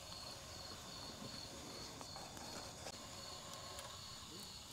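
Faint insect chirping, an evenly pulsed high trill repeating steadily, with a few faint clicks.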